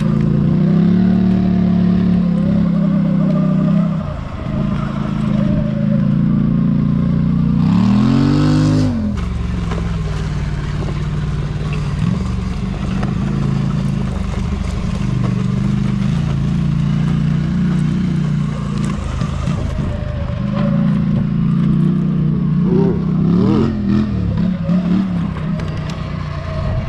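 Polaris Sportsman 850 ATV's twin-cylinder engine running under load along a dirt trail, with a quick rev that rises and falls about eight seconds in and pitch wavering with the throttle near the end.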